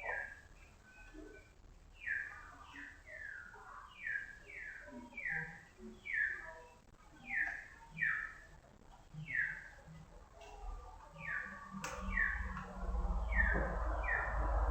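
A bird chirping over and over, each chirp a short downward slide, about one a second. Near the end there is a click, and then a louder low rumbling, rushing noise builds up under the chirps.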